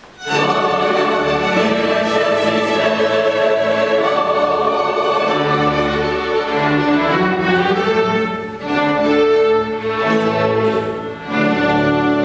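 String orchestra playing, violins and cellos bowing together. It comes in sharply right at the start after a brief lull, with short breaks between phrases about eight and eleven seconds in.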